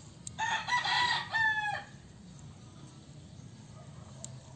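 A rooster crowing once, starting about half a second in and lasting about a second and a half, its call broken into several short notes and ending in a longer one.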